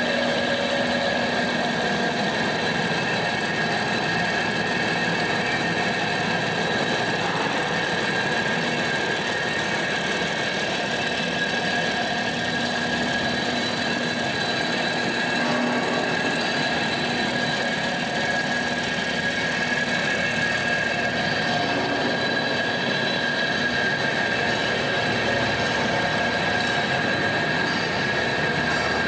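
Diesel-engine-driven drum wood chipper running steadily at speed, the engine's noise overlaid with steady high-pitched tones from the spinning machinery.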